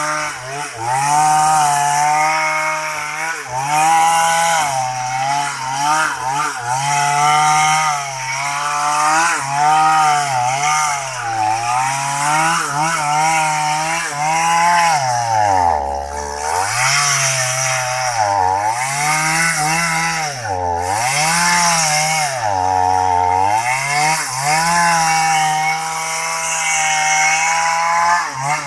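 Small two-stroke chainsaw running at high revs while cutting into a tree. The engine note sags and recovers again and again as the chain bogs under load, dropping lowest about sixteen seconds in and several times between about nineteen and twenty-three seconds in.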